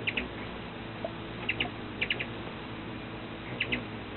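Hummingbirds at a feeder giving short, high chip calls in quick pairs and triples, about four clusters.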